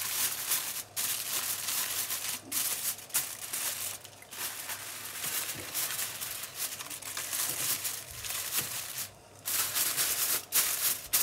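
Aluminium foil crinkling and rustling as hands press and tuck it down around a baking tray, in long stretches with a few short pauses and choppier handling near the end.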